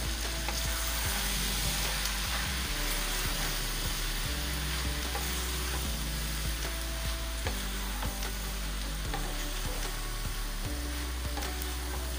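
Macaroni and masala sizzling in a non-stick frying pan over a gas flame while being stirred and tossed with a spatula: a steady sizzle with scattered light scrapes and taps of the spatula against the pan.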